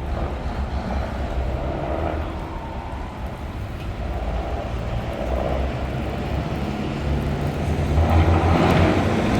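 Truck V8 engine with open exhaust pipes running at low revs, growing louder about eight seconds in.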